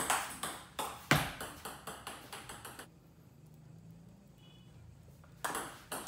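Table tennis rally: the celluloid-type plastic ball clicking off bats and table in quick succession. The clicks stop about three seconds in as the point ends, and start again about five and a half seconds in with the next rally.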